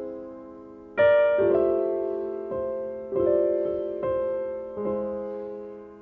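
Background piano music: slow chords struck about once a second, each ringing and fading away before the next.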